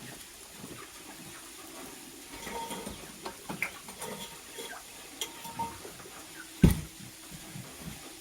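Light clicks, taps and scratching from a lovebird moving about its cage, with one sharp knock about two-thirds of the way through.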